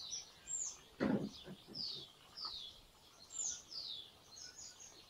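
Small birds chirping in a series of short, high, falling notes, roughly two a second. A brief, louder low sound comes about a second in.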